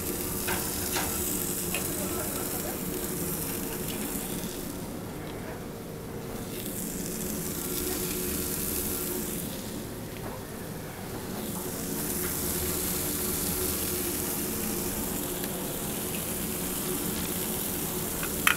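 Venison steaks sizzling on beef tallow in a cast-iron pan over a wood fire, the high-heat first sear. The sizzle swells and eases a few times over a steady low hum, with a few light clicks about a second in.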